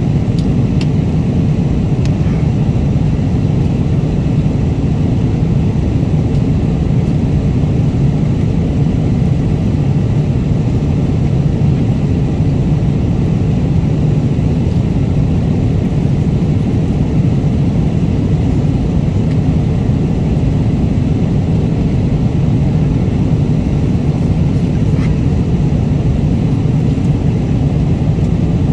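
Steady, loud cabin noise of an airliner in flight, a constant low rumble of engines and airflow, with a few faint light clicks.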